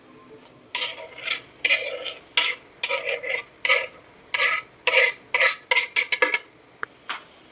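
A spoon stirring and scraping in a cooking pot: a string of irregular scraping strokes, about one or two a second, that starts about a second in and stops near the end.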